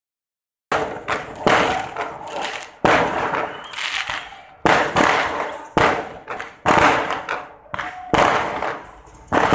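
Aerial fireworks bursting overhead: a string of sharp bangs, roughly one a second, each trailing off in an echo. They start just under a second in.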